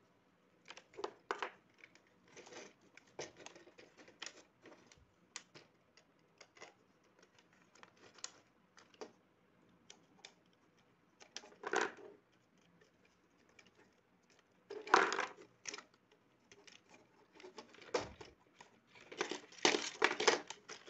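Handling noise of wiring a plastic electrical switchboard: scattered clicks, scrapes and rustles of hands twisting copper wires and working them onto the board's brass terminals, with louder knocks and scrapes near the end as the plastic box is moved on the table.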